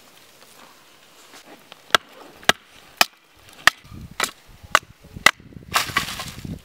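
Batoning: a wooden stick used as a baton strikes the spine of a knife to split a thin upright stick of wood, seven sharp knocks about half a second apart. Near the end comes a longer rasping noise.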